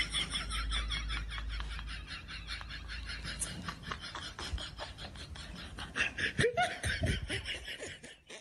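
Laughter in quick repeated pulses, about five a second, easing off in the middle and picking up again around six seconds in.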